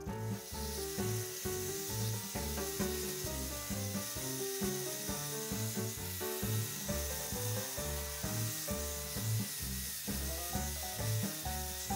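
Power sander with a round foam-backed pad running against a filler-coated box: a steady motor whine with the hiss of sanding. Background music with a steady beat plays over it.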